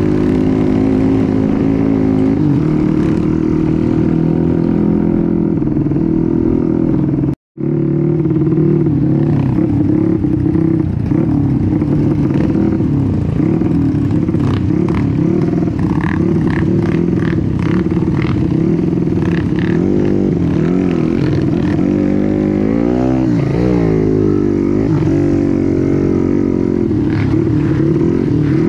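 Trail motorcycle engine running under throttle as it is ridden, its pitch rising and falling with the revs, broken by a short gap of silence about seven and a half seconds in.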